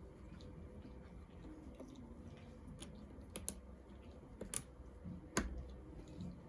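Plastic Lego pieces being handled and pressed together: a few sharp clicks from about halfway in, the loudest near the end, over faint handling noise.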